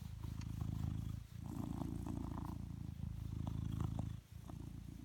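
Blue British Shorthair cat purring close up, in long steady phrases broken by short pauses about a second and a half and about four seconds in.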